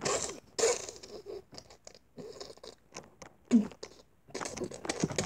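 Rustling and scratching of clothing and body movement close to the microphone, in short irregular bursts. About three and a half seconds in there is one brief voiced sound that falls in pitch.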